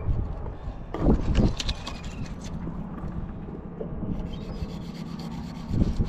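Fillet knife cutting along a striped bass, rasping through the scales and skin against a cutting board in rough strokes, loudest about a second in and again near the end.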